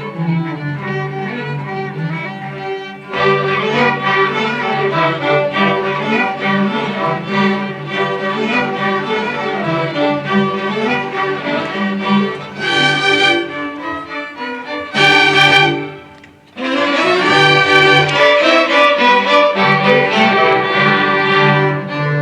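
School string orchestra, violins, cellos and basses, playing a piece live. The ensemble comes in fuller and louder about three seconds in, drops away briefly with a short break about three-quarters of the way through, then plays loudly again.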